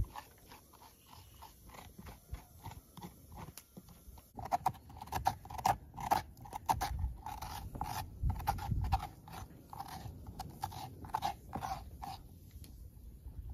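A knife scraping and shaving raw pumpkin flesh in quick repeated crunchy strokes. The strokes are light at first, grow louder after about four seconds, and stop shortly before the end.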